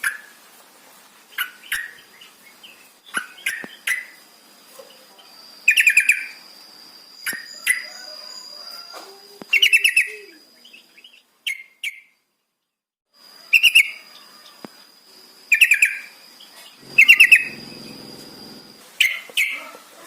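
Yellow-vented bulbul (trucukan) calling: short bursts of quick, bubbly notes repeated about every two seconds, over a steady thin high whine. The sound cuts out completely for about a second near the middle.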